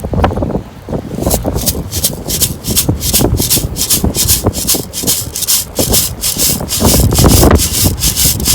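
A beach sand scoop digging into the sand, then shaken back and forth about three times a second so the sand hisses out through its holes, sifting out a detected target.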